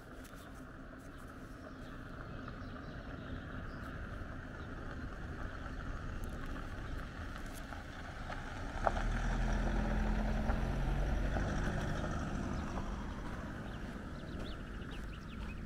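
An SUV driving past on an unpaved dirt road, engine and tyres growing louder as it approaches, loudest about ten seconds in as it passes close, then fading as it drives away. A single sharp click comes just as it draws level.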